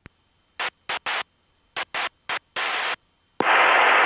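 Aircraft intercom and radio audio switching in and out: a string of short bursts of noise that start and stop abruptly, then a louder burst of radio static lasting about a second, starting about three and a half seconds in.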